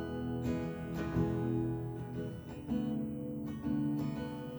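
Acoustic guitar strumming and ringing chords in a live song, moving to a new chord about every second.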